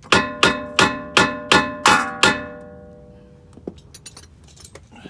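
A hammer striking steel seven times in quick, even succession, each blow ringing like a bell, while the rear upper control arm is knocked into alignment. Faint small clicks follow in the last couple of seconds.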